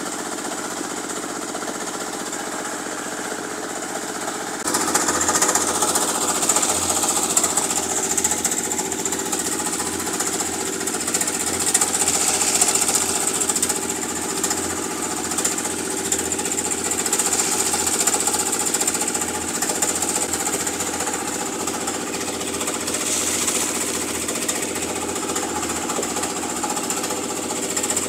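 Machinery on a concrete pour running steadily with a rattling, knocking engine note; about five seconds in it gets louder and a hiss joins it.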